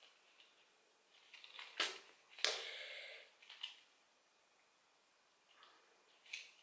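A lipstick's small cardboard box being opened by hand: two sharp clicks about half a second apart, the second followed by a short papery scrape, then a fainter tick.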